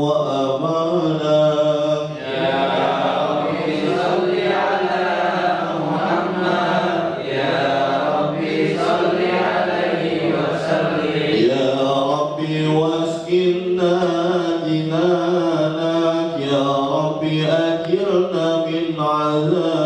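A man's voice chanting a devotional Islamic recitation into a handheld microphone: long melodic phrases with held, bending notes, broken by short pauses for breath about two seconds in and about two-thirds through.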